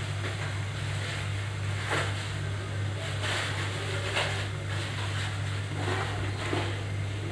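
Hot oil sizzling around chopped tomatoes and chilli flakes in an aluminium pot, with occasional crackles, over a steady low hum.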